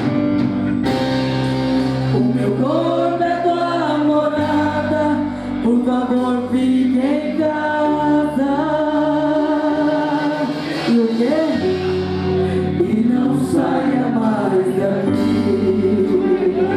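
Live gospel worship music: voices singing a Portuguese worship song over sustained low accompaniment, the low notes changing every couple of seconds.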